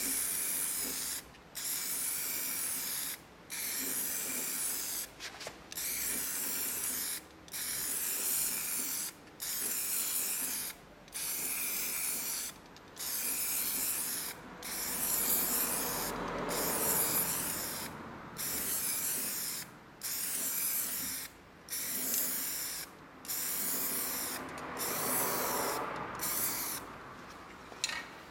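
Aerosol can of MOTIP primer spraying onto a steel wheel rim in short hissing bursts about every two seconds, each broken by a brief pause as the nozzle is released between passes. This is the second, slower primer coat, laid on thicker.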